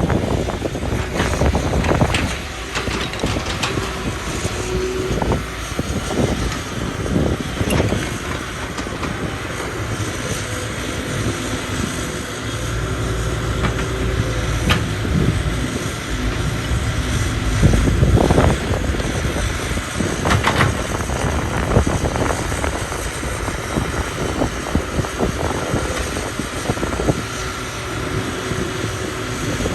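Excavator working: its engine runs steadily with a low rumble, broken by frequent knocks and clanks, a few louder ones past the middle.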